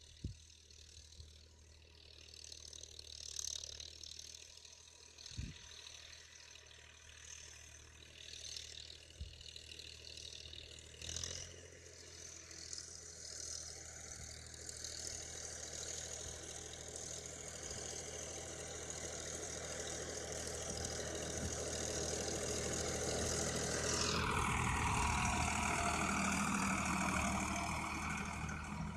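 Farmtrac 60 tractor's diesel engine running steadily while tilling, growing louder as it draws near. Near the end the sound changes to a louder, noisier run.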